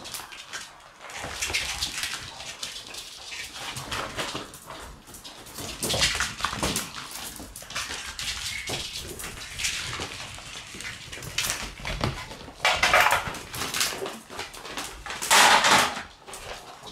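Shiba Inu puppies tussling over a dropped bag, the bag rustling and crinkling as they tug and scuffle at it, with the odd puppy whine. The loudest crinkling comes in two bursts, about two thirds of the way through and near the end.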